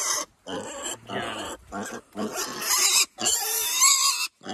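Piglet squealing shrilly while being held and carried, in a rapid series of squeals with short breaks, the last one longer and loudest near the end.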